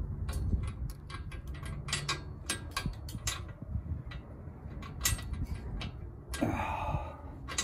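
Scattered light clicks and taps, metal on metal, from a receiver-hitch bolt on its feed wire being worked inside the RV's frame tube, where the bolt keeps catching and won't come through. A short rushing noise sounds near the end.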